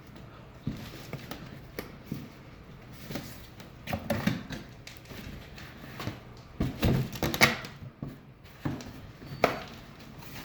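Umbrella display pieces being handled and fitted together: irregular knocks, clicks and rattles, busiest a little past the middle, with a sharp knock near the end.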